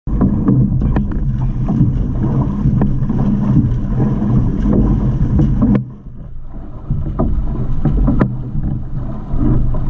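Water rushing and splashing along an outrigger canoe's hull as the crew paddles, with wind buffeting the microphone and frequent sharp knocks of paddle strokes. The noise drops briefly about six seconds in, then picks up again.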